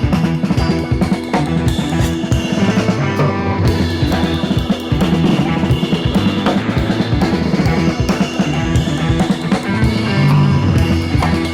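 Background rock music with a full drum kit and a steady beat.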